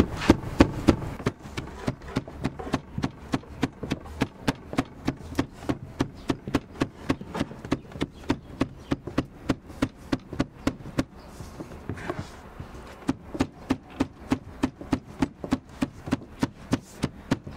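A steel cleaver chopping diced onion and peppers on a wooden board: quick, even knocks, several a second, with a short pause a little past the middle.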